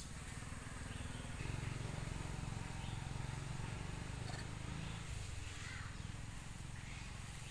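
Outdoor ambience: a steady low rumble with faint short high-pitched calls recurring every second or so.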